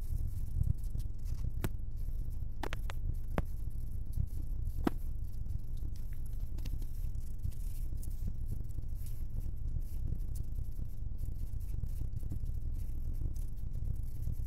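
Steady low rumble of a Scania K410 double-decker bus on the move, heard from inside the front of the bus, with a few sharp clicks or rattles about two to five seconds in.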